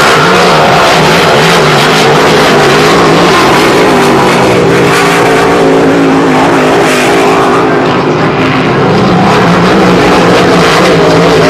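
V8 engines of Grand Prix hydroplane race boats running flat out at racing speed, a loud steady drone whose pitch wavers slightly, dipping briefly about eight seconds in.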